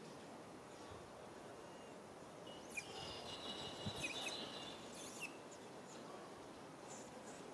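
Steady outdoor background noise. About two and a half seconds in, high-pitched chirping starts and runs for a couple of seconds, with a few sharp clicks.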